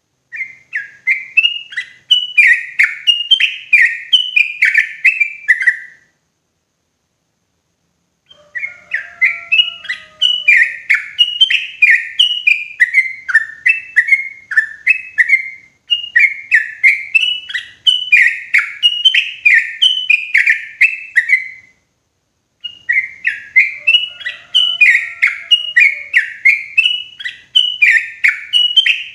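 Yellow-vented bulbul (trucukan) singing loud and clear: long runs of bubbly notes, about two a second, in four bursts broken by short pauses.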